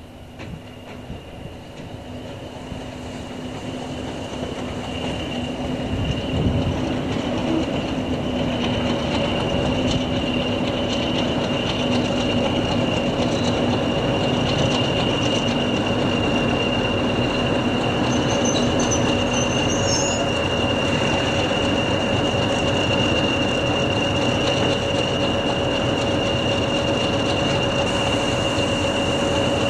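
A train running slowly close by, growing louder over the first ten seconds and then holding steady. A steady high-pitched wheel squeal rings through it.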